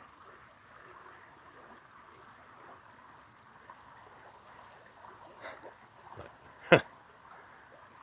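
Faint, steady rush of a small forest creek, with a single sharp crack a little before the end.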